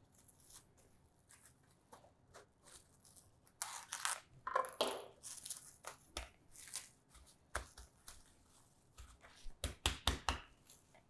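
Plastic cling wrap rustling and crinkling in short bursts as it is pulled and folded around a disc of pie dough, with a few light knocks on the countertop.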